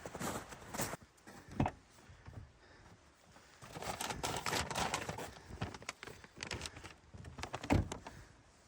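Someone handling gear and food: a few knocks and thumps, with a stretch of rustling and crinkling in the middle and a heavier thump near the end.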